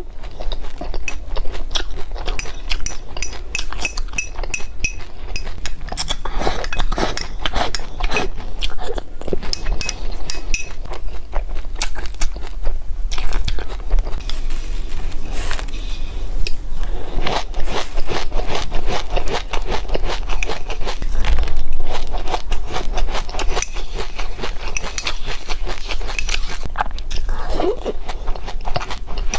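Crunching and chewing of mouthfuls of sesame seeds mixed with yogurt, a dense crackle of small bites, with a spoon scraping and clinking against a glass bowl.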